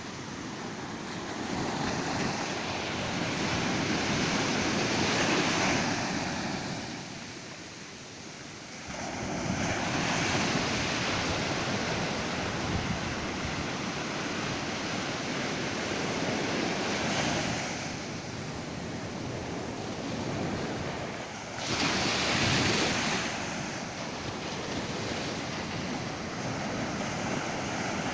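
Ocean surf breaking on a beach, the rushing noise swelling and fading as about four waves break and wash in.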